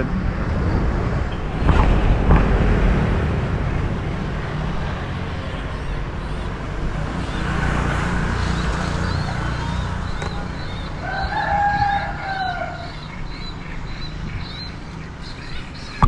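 A rooster crows once, one long call about eleven seconds in. Under it runs steady rustling and wind-like noise, with a louder bump about two seconds in.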